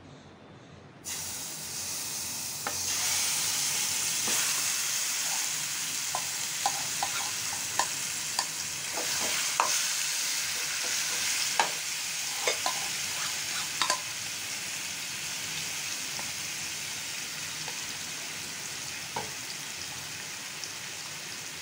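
Yogurt-marinated chicken sizzling as it hits a hot, lightly oiled nonstick kadhai, starting suddenly about a second in. A wooden spatula clicks and scrapes against the pan as the chicken is stirred, then the frying carries on steadier and a little quieter in the second half.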